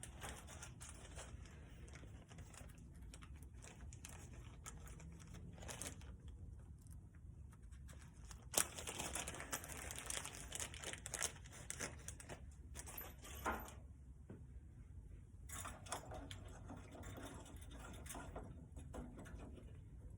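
Hand handling of small metal pipe fittings and parts: scattered clicks and knocks with rustling, a denser stretch of rustling in the middle and a sharp click at its start.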